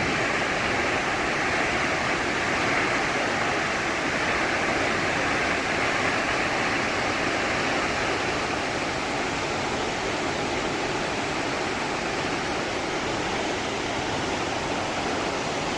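A 92-metre plunge waterfall: a steady, even rush of falling water, with no change in level.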